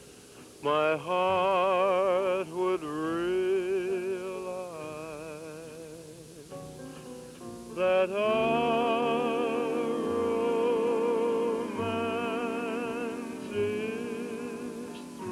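Music: a solo singer holding long notes with a wide vibrato.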